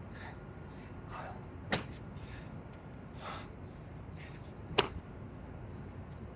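A man breathing hard through burpees, with short hissy breaths every second or so. Two sharp smacks on concrete come about three seconds apart, the second the louder.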